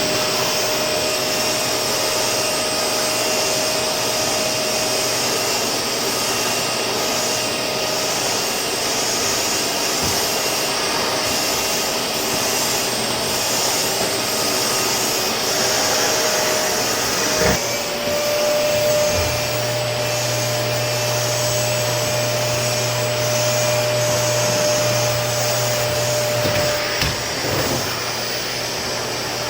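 Vacuum cleaner running steadily, a constant whine over hiss. A little past halfway there is a brief knock, after which a lower hum joins the motor sound.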